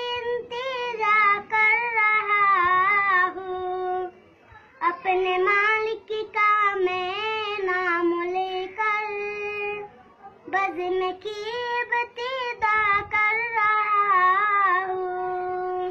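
A boy singing an Urdu hamd (a devotional poem in praise of God) solo and unaccompanied, in three long phrases with ornamented, wavering held notes and short breaths between them.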